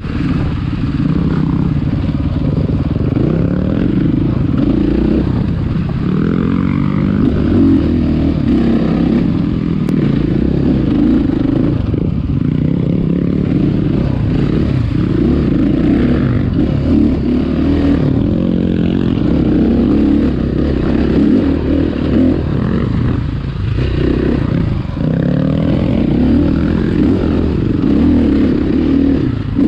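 Dirt bike engine riding singletrack, its revs rising and falling again and again as the throttle opens and closes.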